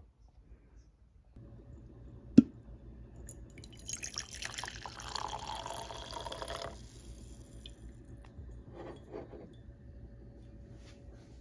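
Coffee poured from a glass carafe into a ceramic mug for about three seconds, preceded by a single sharp click. A few faint knocks of the mug being handled follow.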